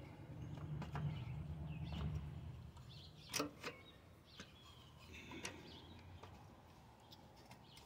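Faint clicks and light ticks from fingers working the metal linkage rods and springs at a Honda HR215 lawnmower's carburetor, a few sharp clicks in the second half. A low rumble fades out about three seconds in.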